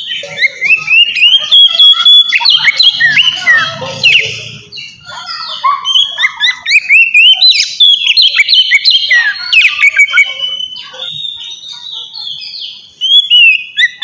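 Oriental magpie-robin (kacer) singing loudly: a rapid, varied stream of rising and falling whistles, held notes and chattering clicks, with short pauses twice.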